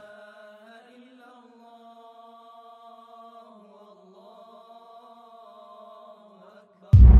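A low, wordless chant-like vocal drone held on one pitch with slow wavers, as a soundtrack underscore. Near the end it drops out and a sudden loud, deep boom hits.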